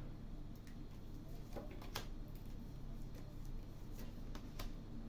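Faint, irregular light clicks and taps, about seven in five seconds, over a steady low hum.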